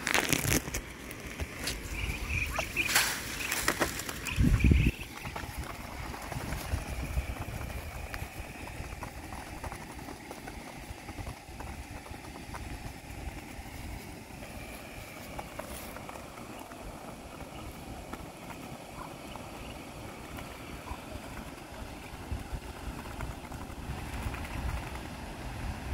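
Muscovy ducklings pecking and rustling at a feed dish, faint ticks over a steady outdoor background, with several sharp knocks and a low rumble in the first five seconds.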